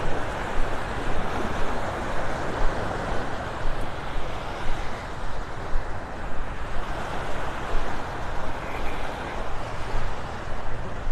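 Wind rumbling and buffeting on the microphone over the wash of small waves breaking on a sandy shore.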